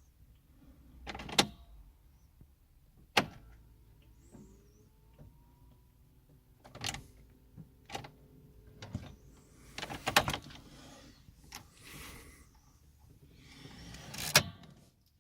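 Repeated sharp clicks and short mechanical rattles inside the 2003 Mercedes A160 as the key is turned over and over to start it, with no engine cranking or firing: the car's intermittent no-start fault.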